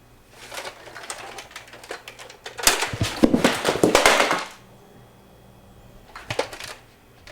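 Nerf blasters firing, with rapid clicking and clattering in a small room. The sound comes in bunches, and the loudest, densest run of clatter falls about three to four and a half seconds in.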